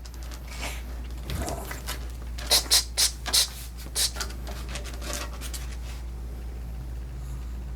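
Grooming shears snipping a puppy's matted fur: a quick run of about half a dozen short snips in the middle, over a steady low background hum.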